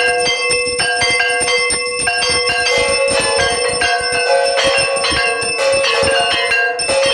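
Temple aarti bells and a hand-held metal gong plate struck rapidly and without pause, many overlapping metallic rings of different pitches.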